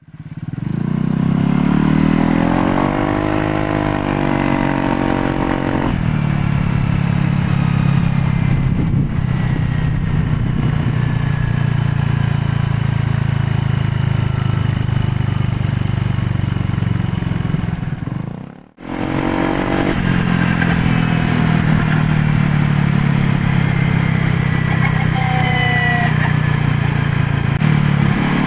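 Honda PCX125 scooter's single-cylinder engine and drive heard while riding: the engine note rises and bends as it speeds up over the first few seconds, then runs steadily, with thin high whines that fall in pitch. The sound breaks off briefly about two-thirds in and the same riding sound resumes.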